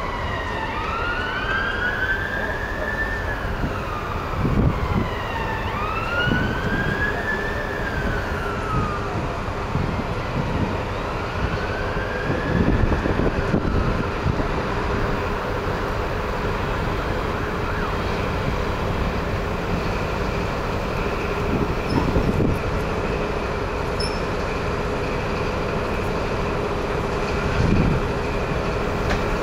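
An emergency-vehicle siren wails in slow rising and falling sweeps, dying away after about twelve seconds. Under it, the diesel engine of a High Speed Train's class 43 power car runs with a steady drone and a higher whine as the train draws in along the platform. A few low thumps come through.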